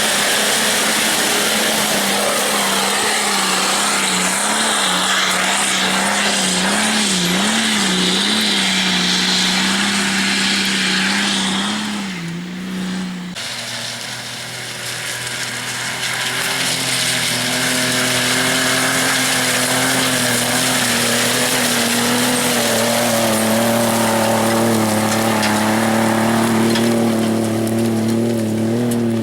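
Off-road 4x4 engine running at high revs, flat out up a loose-stone hill climb, its note wavering up and down as the tyres scrabble for grip. About thirteen seconds in it breaks off and another engine takes over at a lower, steadier note, over the constant noise of tyres on stones.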